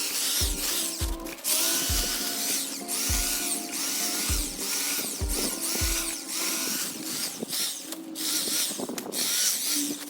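Background music with a regular beat, over an electric hedge trimmer running in bursts with a high-pitched buzz as it cuts.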